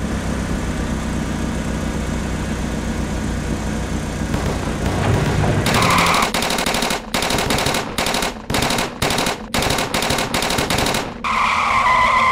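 Cartoon vehicle sound effects: a motor running steadily, then from about halfway a rapid series of loud noisy bursts, cut on and off about nine times, that stop abruptly.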